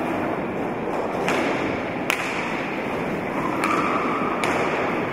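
Roller hockey in play: sharp cracks of sticks striking the hard ball, about a second in, twice around the second second, and once near the end, over a steady hubbub in the hall.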